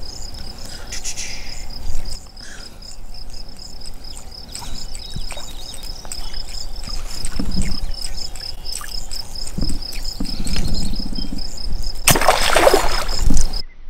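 Insects chirping in a steady, fast, even pulse, with faint scattered knocks and rumbles. Near the end comes a loud rush of noise that cuts off abruptly.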